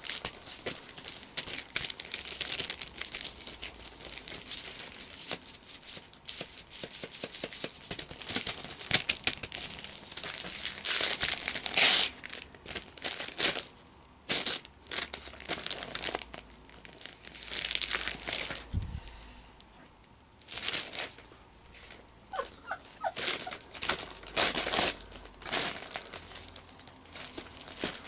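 Gift wrapping paper rustling, crinkling and tearing in irregular bursts as a present is unwrapped, with a few short pauses between handlings.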